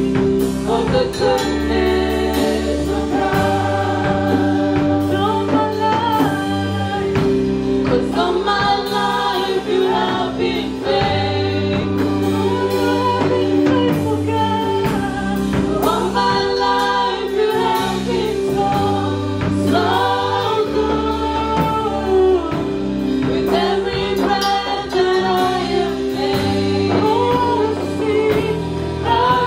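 Gospel worship song: a group of singers on microphones singing together over sustained electric keyboard chords and a slow-moving bass line.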